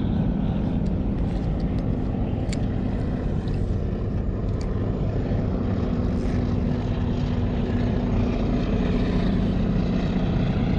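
Minn Kota bow-mount electric trolling motor running with a steady low hum.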